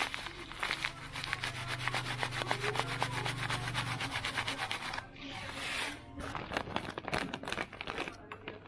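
Sesame seeds shaken from a plastic packet into a glass bowl of sauce: a fast rattle of many small ticks for about five seconds. Then crinkling of a plastic bag with a few scattered clicks.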